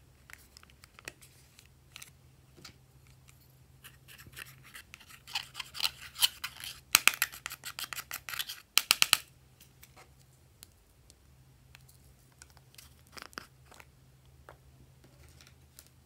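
Fast scraping strokes of a wooden-handled brush digging pressed eyeshadow out of a plastic compact, loudest for a few seconds in the middle. Before and after it there are light scattered clicks of plastic makeup cases being handled.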